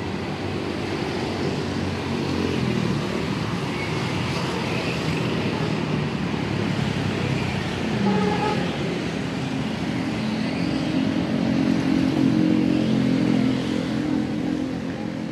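City street traffic: cars and motorcycles passing close by with their engines running, swelling and fading as they go past, loudest near the end.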